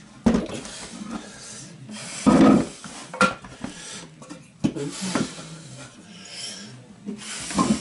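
Wooden blocks and a cordless drill being handled: a string of sharp knocks and scrapes of wood being moved and set against wood, with one louder scrape about two seconds in.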